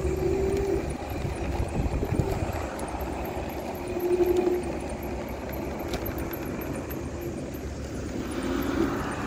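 iSinwheel S9 Max electric scooter running over a steady low rumble of wheels and wind, with a whine from its hub motor that comes and goes a few times. The rider calls the hub motor blown.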